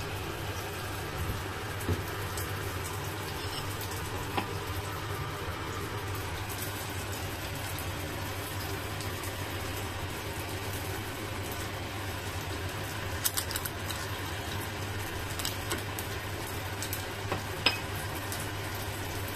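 Freshly air-fried chicken wings sizzling in the hot fryer basket over a steady low hum, with a few light clinks of a metal spoon against the basket as honey is spooned over them.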